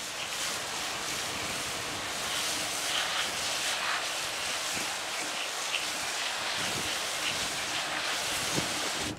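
Water spraying onto a compost pile to wet its layer of dry brown material: a steady hiss that starts and cuts off abruptly.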